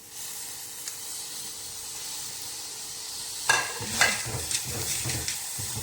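Hot pan sizzling with a steady hiss as tulsi and ajwain leaves dry-roast with black pepper, chitharathai and palm sugar candy. From about three and a half seconds a spatula stirs through the pan, with two sharp knocks against it.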